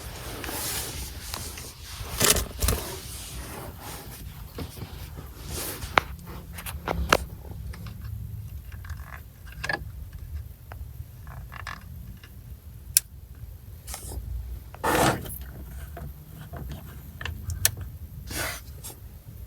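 Scattered clicks, light knocks and scrapes of small objects being handled, with a few rustling bursts, over a low steady rumble.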